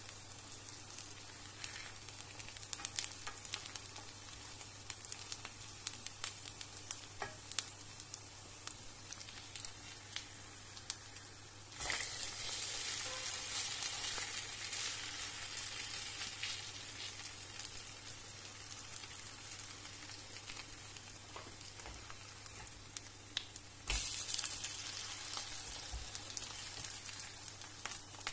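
Potato and carrot pancakes frying in olive oil in a pan: a soft crackle with scattered pops, jumping to a louder sizzle about twelve seconds in that slowly eases off, and rising again near the end.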